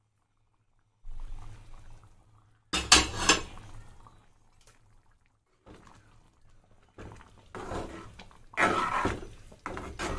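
A metal ladle stirring thick dal makhani in a steel pot, scraping and clinking against the sides in repeated strokes. There is a loud clank of metal on metal about three seconds in.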